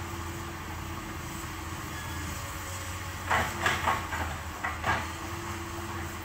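Komatsu PC200-8 hydraulic excavator's diesel engine running steadily at a distance, a low hum with a faint held tone. Between about three and five seconds in, a few short, louder clatters stand out.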